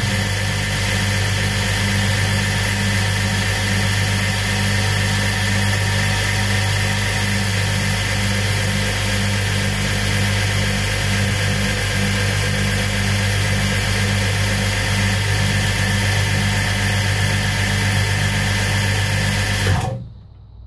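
Electric belt grinder running free with a 40-grit zirconia belt and no work on it: a steady motor hum with belt hiss. It is switched on at the start and switched off shortly before the end.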